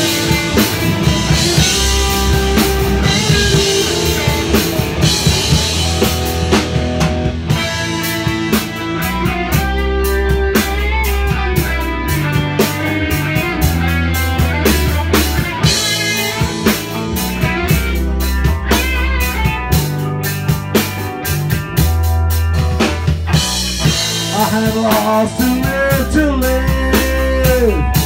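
A rock band playing live: a Mapex drum kit keeps a steady beat with cymbals under electric guitars.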